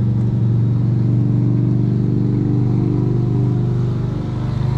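1986 Lennox HS18 central air conditioner condensing unit running, with a loud, steady hum from its compressor and condenser fan; the compressor looks to be a reciprocating type.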